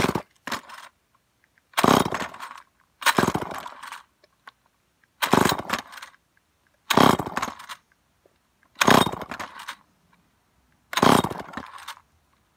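Old Remington two-stroke chainsaw being pull-started over and over: about seven sharp rasping pulls of the recoil starter cord, each under a second, one every one and a half to two seconds. The engine turns over but never catches, on a saw that hasn't run in four or five years.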